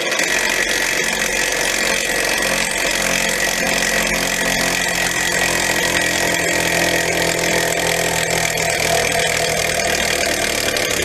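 Cordless drill running steadily at a constant pitch as it winds down a car's screw jack, lowering the vehicle onto its wheel. The drill stops abruptly at the end.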